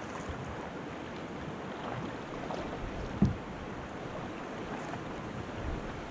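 River current rushing and splashing around a kayak running a choppy, rocky stretch, a steady wash of water noise. One dull thump a little over three seconds in.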